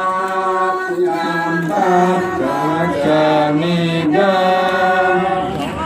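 A song in Balinese sung as a slow chant, with long held notes that slide from one pitch to the next.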